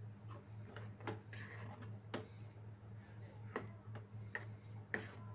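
A steel spoon stirring thick curry gravy in a pan, clicking against the pan now and then at uneven intervals, with a steady low hum underneath.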